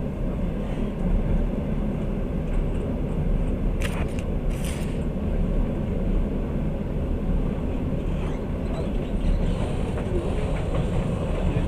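Passenger train running, a steady low rumble of wheels and carriage heard from inside the car. There are two brief hissing sounds about four seconds in.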